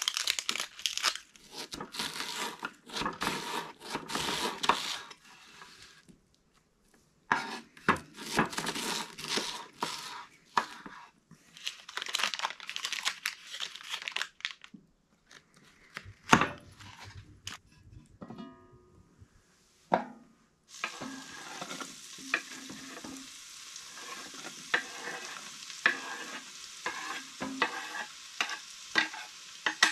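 A knife chopping onion on a wooden cutting board in two long runs of quick strokes, then a single loud knock. About two-thirds of the way in, butter and onion start sizzling steadily in a cast iron Dutch oven, with a fork clicking and scraping against the pot.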